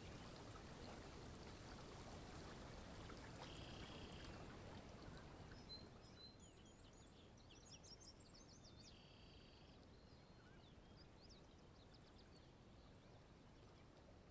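Faint background ambience: a soft steady hiss, a little louder for the first six seconds or so, with scattered small bird chirps and a few short high trills in the second half.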